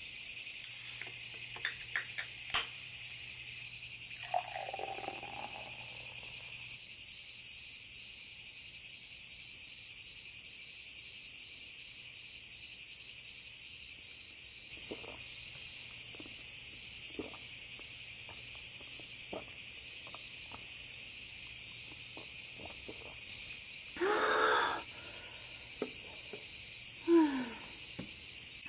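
Night insects (crickets and the like) chirping and trilling steadily. A few sharp clicks near the start, when tongs shift the charcoal in the grill, and scattered knocks and scrapes later, the loudest near the end.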